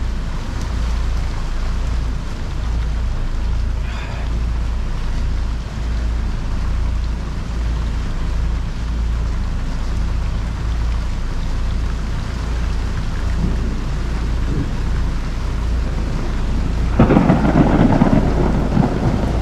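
Squall wind and rain: the wind buffets the microphone in a steady heavy rumble while rain falls, and the noise turns suddenly louder and rougher near the end.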